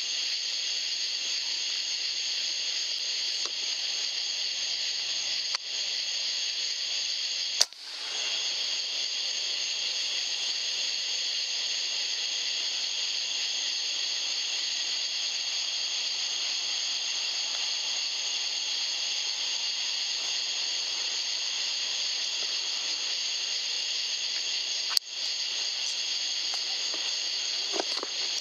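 Steady electronic hiss from an ATN thermal scope's built-in recorder, broken twice by a sharp crack, about 8 seconds in and again near 25 seconds, each followed by a brief drop in level.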